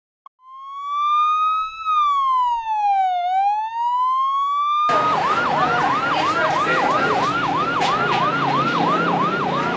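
Emergency vehicle siren: a slow wail that rises, falls and rises again, switching about five seconds in to a fast yelp of about three sweeps a second over a background of noise.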